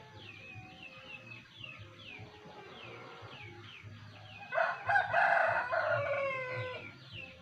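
A rooster crows once, a long call of about two and a half seconds starting about four and a half seconds in and dropping in pitch at the end. Behind it, short high falling chirps repeat about three times a second.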